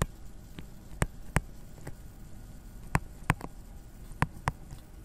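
Stylus tapping and clicking on a tablet screen while handwriting: about seven sharp ticks, several in close pairs about a third of a second apart.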